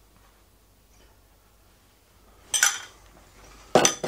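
A metal spoon clinks twice against a dish, about two and a half seconds in and again a second later, each strike ringing briefly; the second is the louder.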